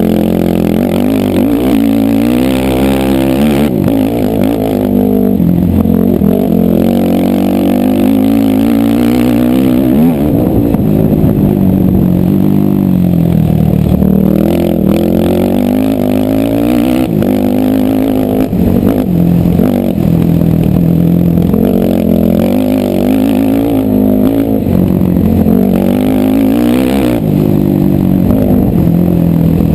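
Racing ATV engine running hard, its pitch rising and falling over and over as the throttle is opened and closed through the ride.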